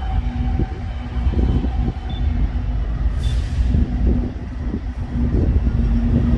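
Union Pacific diesel freight locomotives approaching at speed, their engines running with a steady deep rumble and a low steady hum.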